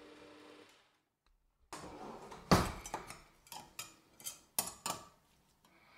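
Electric meat grinder's motor hum stops just under a second in. After a short pause comes a run of metal scrapes and clinks as a table knife scrapes minced meat off the grinder's steel perforated plate, the loudest about two and a half seconds in.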